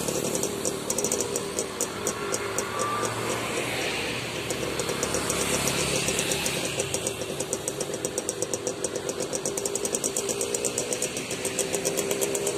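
Intercity coach engine running as the bus pulls away across a railway level crossing, with a rapid, even high-pitched ticking repeating several times a second.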